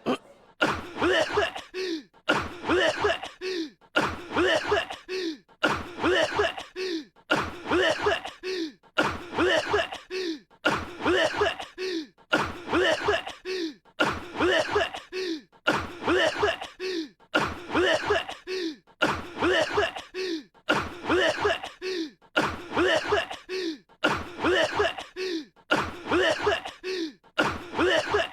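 A young man's short cough, repeated over and over at a perfectly even pace of about once a second, like one cough looped. Each cough ends in a brief voiced sound that drops in pitch. It is the cough of a boy with a cold.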